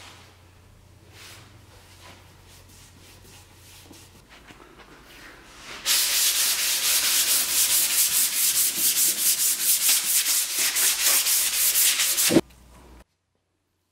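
Hand sanding a painted wooden drawer: light scattered rubbing at first, then from about six seconds in a fast, even run of back-and-forth strokes, about five a second, that stops abruptly near the end.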